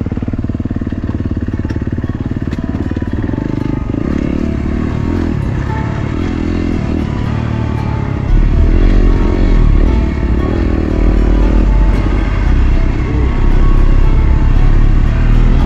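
Dirt bike engine running as the bike rides, mixed with music; about halfway through a deep bass comes in and the whole gets louder.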